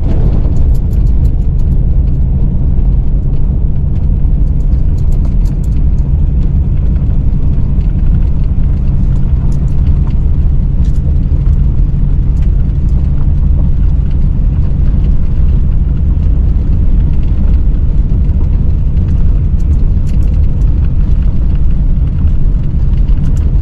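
Pickup truck driving slowly up a snow-covered back road: a steady low engine and tyre rumble, with faint scattered ticks over it.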